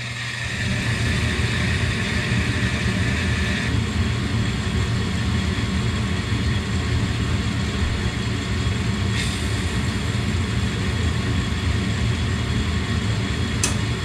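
Gas furnace starting up: its draft inducer blower runs with a steady low hum. A higher hiss drops out about four seconds in, and a sharp click comes near the end as the burners light.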